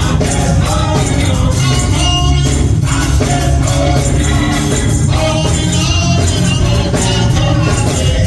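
Live gospel music with tambourine, a steady beat over heavy bass, and singing voices.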